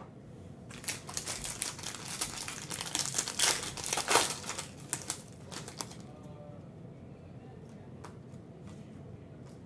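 Foil Panini Prizm basketball card pack wrappers crinkling as they are handled and torn open, for about five seconds from a second in, then only a few faint ticks.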